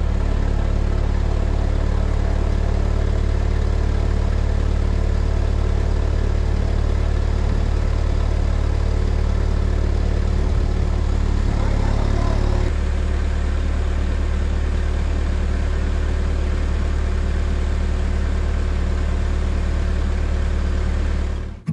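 A heavy engine idling steadily. About 12 seconds in, its note drops slightly and becomes a little quieter.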